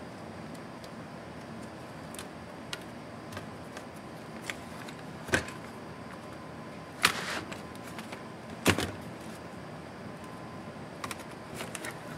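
Sharp plastic clicks and snaps from the ASUS Zenbook UX360C's case as its keyboard top case is pried and lifted off the bottom shell, the clips letting go. Small ticks come throughout, with the loudest snaps about five, seven and nine seconds in, over a faint steady hiss.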